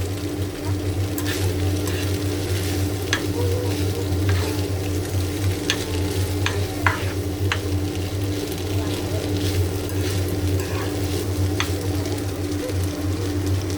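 Veg chowmein stir-frying in a pan: a steady sizzle, with scattered sharp scrapes and taps of the spatula against the pan, over a steady low hum.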